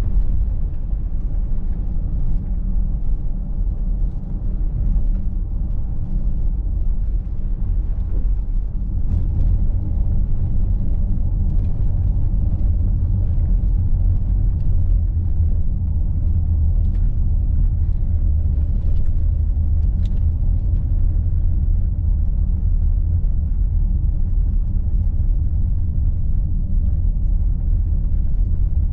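Mercedes-Benz GLC Coupé 300de 4Matic driving, heard from inside the cabin: a steady low rumble of road, tyres and drivetrain, with a few faint ticks.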